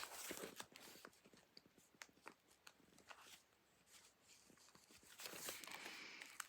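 Faint handling of a handmade junk journal's paper pages and cards: a few soft ticks and taps, then a soft paper rustle about five seconds in as a page is turned.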